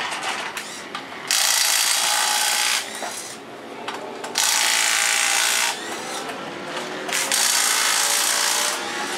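Pneumatic impact wrench working the wheel nuts of a rally car during a wheel change. It runs in three bursts of about a second and a half each, with a gliding whine as it spins between runs.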